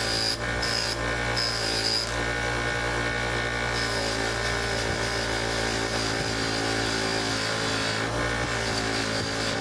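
A 6-inch bench buffer running steadily with a constant motor hum while a brass piece is held against its spinning cloth buffing wheel. A higher hissing rub from the contact comes and goes as the piece is pressed on and eased off.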